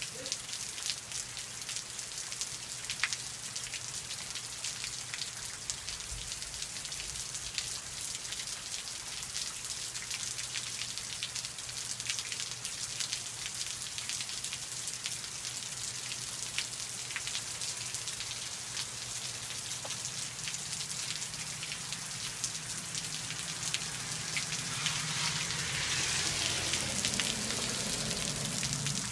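Steady rain falling, with many individual drops ticking close by over a constant hiss; the sound swells louder near the end.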